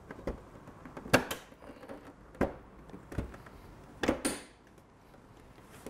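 Plastic body panel of a Vectrix electric scooter being worked into place by hand: a series of sharp knocks and clicks, the loudest about a second in, with more at about two and a half, three and four seconds.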